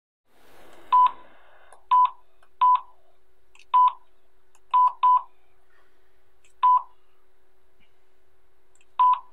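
Keypad beeps of a push-button mobile phone: eight short, loud beeps at uneven intervals as its keys are pressed to scroll through a menu and confirm a delete. A faint steady hum sits underneath.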